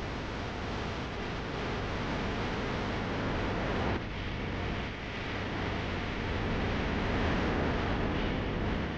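Steady wind rushing over the microphone of a camera on a moving bicycle, with a brief dip and change in the noise about four seconds in.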